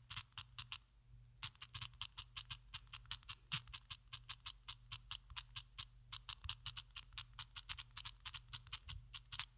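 Rapid typing clicks from a phone's on-screen keyboard, about six taps a second. A short run at the start, then a long run from about a second and a half in, with a brief pause near the middle.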